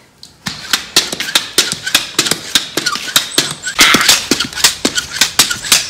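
Rapid, irregular clacking of a plastic hockey stick working a ball over block paving, several sharp taps a second.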